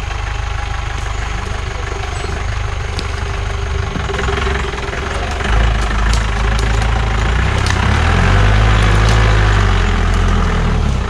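Off-road vehicle's engine running near idle, then revving and working harder from about halfway through, loudest a little before the end as it pulls over rough ground.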